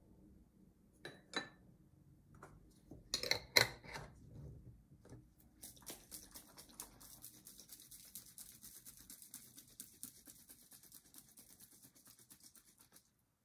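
A few knocks and clinks of glass and a wooden spoon, the loudest about three and a half seconds in, then a lidded glass jar of wild onion flower heads in vinegar shaken hard: a fast, steady sloshing rattle for about seven seconds that stops suddenly.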